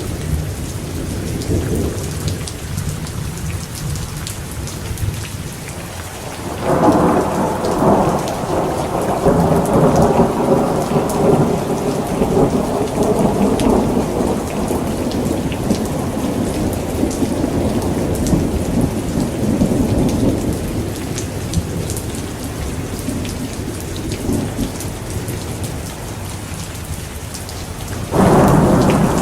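Thunderstorm: steady heavy rain with rolling thunder. A low rumble at the start gives way to a loud clap about a quarter of the way in, which rolls on and slowly fades, and another clap breaks near the end.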